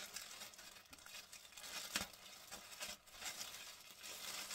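Packaging crinkling and rustling as clothing is unwrapped and handled, with a sharper crackle about two seconds in.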